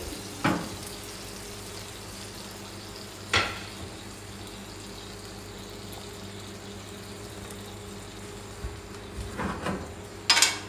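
Metal clanks of kitchen tongs and a cast-iron stovetop griddle: a sharp clack as the tongs are set down on the griddle, then a few knocks and a loud clank near the end as the griddle plate is lifted off the gas range's burner grates. A steady low hiss and hum runs underneath.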